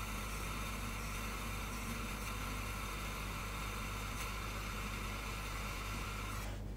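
Steady whirring of a small machine motor with a low hum, cutting off abruptly shortly before the end.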